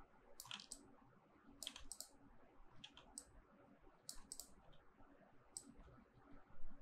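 Faint clicks of a computer mouse, scattered through the pause and mostly in twos and threes, as objects are selected on screen.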